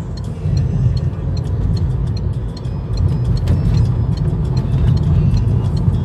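Steady low road and engine rumble heard from inside a car cruising on a highway, with a faint regular ticking over it.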